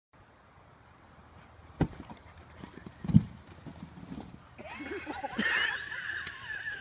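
A sharp knock and then a heavier thump as a white dog collides with a large inflatable exercise ball, followed for the last two seconds by a high, wavering squeal.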